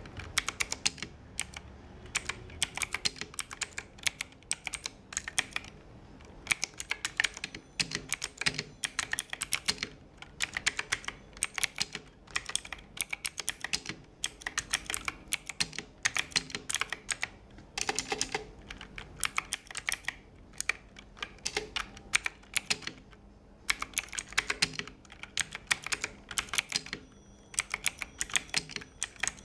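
Typing on a Bajeal K100 mechanical keyboard: fast runs of sharp key clicks in bursts, broken by brief pauses every few seconds.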